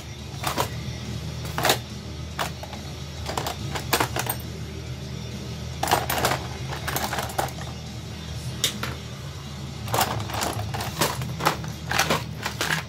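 Many irregular, sharp clicks and snaps of hard plastic as a laptop screen bezel is pried loose and small tools are handled, over low background music.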